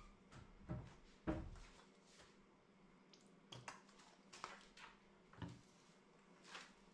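Faint handling noises: a few light knocks and clicks as a bottle and utensils are picked up and set down on a stainless-steel worktop, the loudest knock about a second in.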